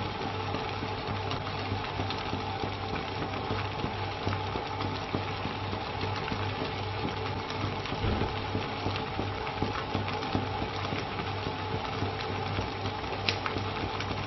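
Fish congee simmering in a clay pot over a gas burner: a steady hiss and hum from the flame with the porridge bubbling as the fish slices cook through.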